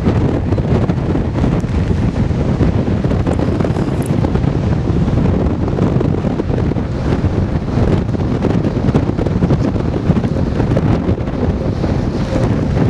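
Strong wind buffeting the microphone: a loud, steady, low rumble that rises and falls with the gusts.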